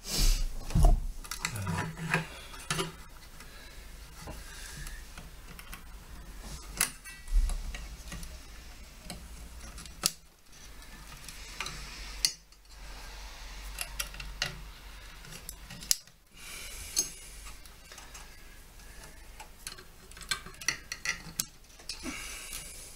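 Wire-harness connector plugs being handled and pushed back into the sockets of a plasma TV's power board: scattered small plastic clicks and knocks with the noise of cables being moved.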